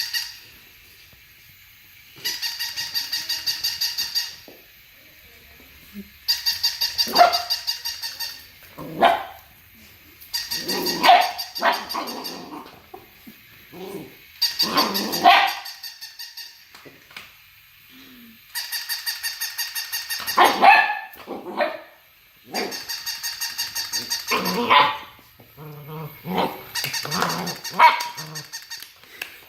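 A golden retriever puppy barking in short bursts at a battery-powered robot toy dog, which plays repeated electronic sound effects: a rapid, evenly pulsed synthetic tune in bursts of two to four seconds.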